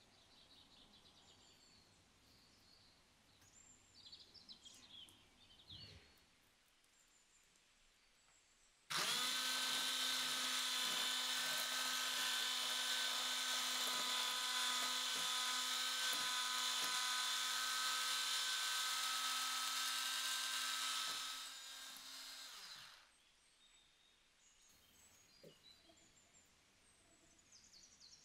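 Electric hand mixer starts about a third of the way in and runs steadily at one speed for about thirteen seconds, its beaters whisking a runny egg batter in a glass bowl with occasional ticks against the bowl. It drops a little in level shortly before switching off.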